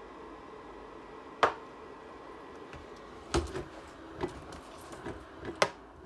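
Small ceramic space heater's fan running with a steady whir while the heater lies tipped over, its heating element already cut off by the tip-over switch and the fan running on to cool it. A single sharp click comes about a second and a half in, then a series of knocks and clicks as the plastic heater is handled.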